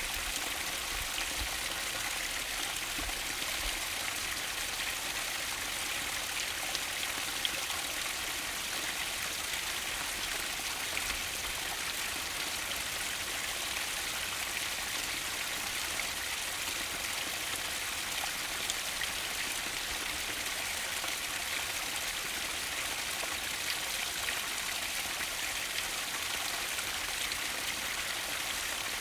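Mountain stream flowing, a steady even rush of water.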